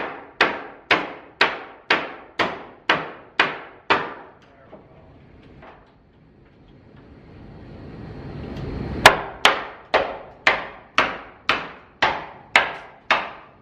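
Hammer blows in two steady runs of about nine strikes each, roughly two a second, each a sharp knock with a short ring. The runs are separated by a pause of about five seconds, during which a faint hiss swells.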